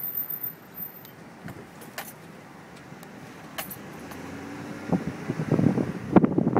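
Car driving at low speed, heard from inside through an open window, with a few light clicks and rattles. About five seconds in, gusty wind begins buffeting the microphone and grows louder.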